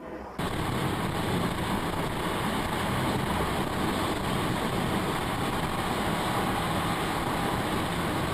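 Steady road and engine noise of a moving car, starting abruptly about half a second in.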